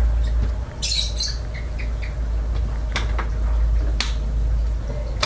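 Handling noise at a glass-fronted wooden snake cage: a short high squeak about a second in, then sharp clicks near three and four seconds, over a steady low rumble.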